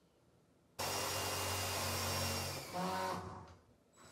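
A power tool starts abruptly about a second in, runs steadily for about two seconds, then changes pitch and winds down to a stop. It is being used on the wooden pet door frame.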